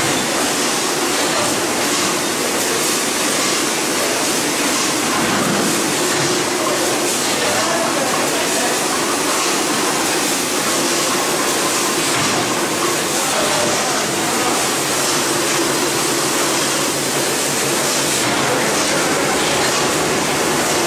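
Granule filling and packaging line machinery running together: a steady, even mechanical whir and hiss with no distinct strokes or pauses.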